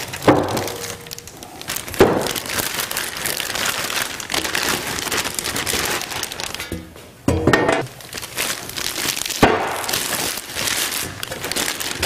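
Plastic packaging bags crinkling and rustling as sheet-metal bandsaw stand plates are unwrapped by hand, with a few sharp knocks of the metal parts being handled and set down.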